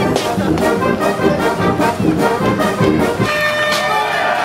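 Marching brass band with sousaphones, trumpets and trombones playing a lively tune over a steady drum beat; the low parts thin out a little near the end.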